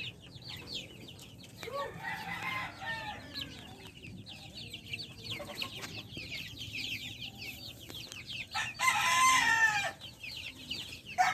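Chicks peeping constantly in many short, high, falling chirps, with a lower chicken call about two seconds in. Near the end a rooster crows once, loudly, for over a second.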